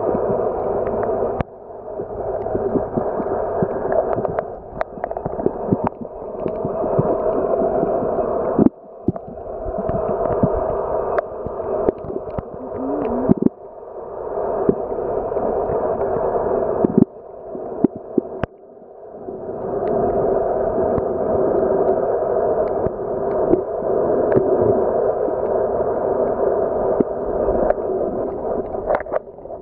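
Underwater sound picked up by a submerged camera: a steady, muffled noise with scattered clicks and knocks. It drops out briefly several times and swells back each time.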